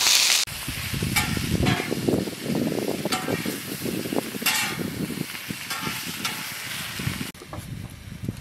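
Sliced onions sizzling in pork-fat grease on a Blackstone flat-top griddle, with metal spatulas scraping and turning them on the steel surface in short strokes. The scraping stops shortly before the end.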